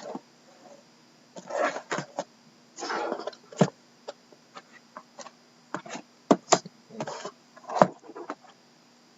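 Shrink-wrapped cardboard boxes of trading cards being handled: short plastic crinkles and rustles with a few sharp taps and knocks.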